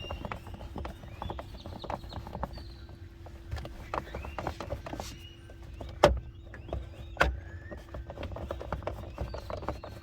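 Irregular clicks and knocks of plastic steering-column trim being handled and screwed back together, with two louder knocks about six and seven seconds in, over a faint steady hum.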